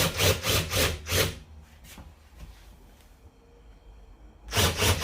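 Cordless drill with a large bit countersinking a screw hole in cabinet wood, the bit rasping into the wood in quick pulses, about four a second. It stops about a second and a half in and starts again near the end.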